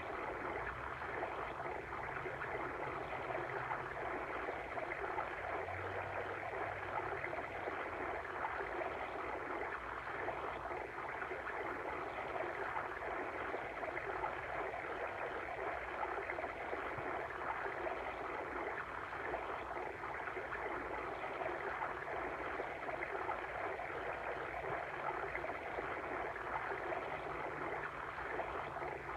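Steady babbling of a water stream, an even flowing rush with no break.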